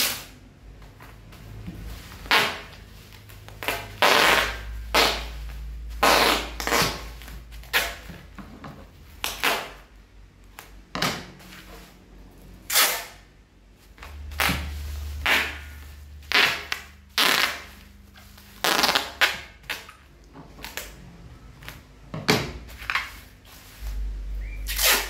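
Brown packing tape pulled off the roll again and again in short, harsh rips as it is wound around a bubble-wrap parcel, with crinkling of the plastic wrap between pulls.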